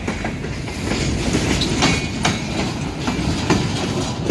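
Freight train cars rolling past at close range: a steady heavy rumble with irregular clacks of the wheels over the rail joints.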